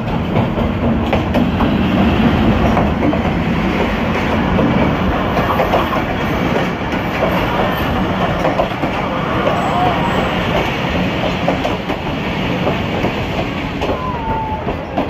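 Diesel locomotive passing close by with its engine running, loudest in the first few seconds. Then the passenger coaches roll past, their wheels clattering over the rails.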